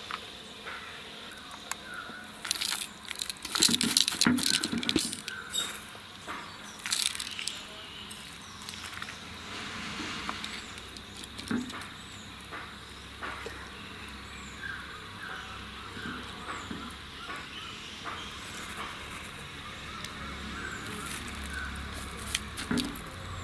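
Cut citron pieces tipped from a bowl and pressed by hand into a plastic jar, with coarse rock salt sprinkled over them: clattering and rustling handling noise, loudest a few seconds in, then lighter scattered clicks.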